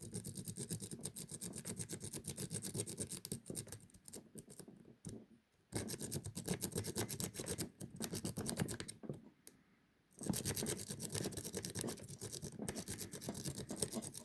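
Worm rake scrubbed rapidly in and out of a Burg 40 mm padlock's keyway, a fast, rhythmic metallic scratching over the pin stack, in three runs with short pauses between them.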